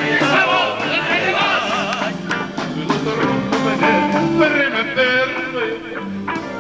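A man singing into a microphone with instrumental accompaniment, his voice wavering on held notes.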